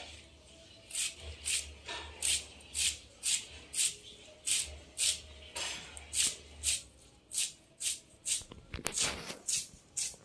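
Kitchen knife shredding a head of cabbage by hand, a crisp cut about twice a second in a steady rhythm.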